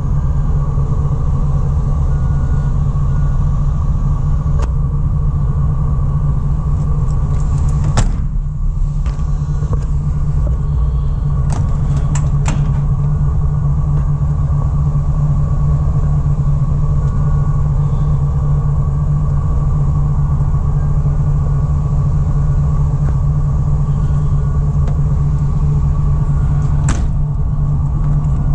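Gasoline V8 engine of a GMC Savana 3500 utility van idling, a loud, steady low rumble with a faint steady tone above it. A few sharp clicks from handling the open compartment door cut in: one about eight seconds in, two around twelve seconds, one near the end.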